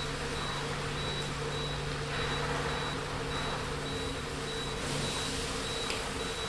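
Electronic alarm beeping steadily, about two high beeps a second, over a steady low hum. A hiss swells twice, about two seconds in and again near five seconds.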